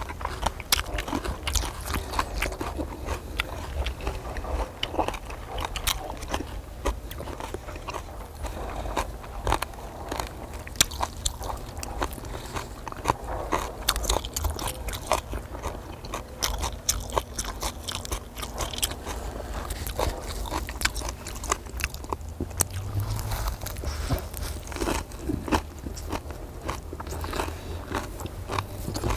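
Close-miked chewing and biting with many crunchy bites, someone eating grilled pork belly with minari.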